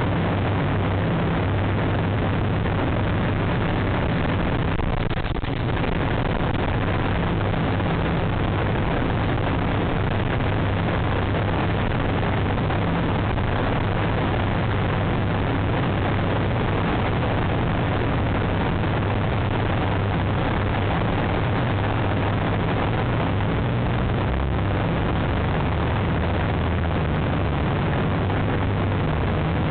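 Steady rushing noise with a constant low hum beneath it and no distinct events, picked up by an outdoor microphone on a high city building ledge.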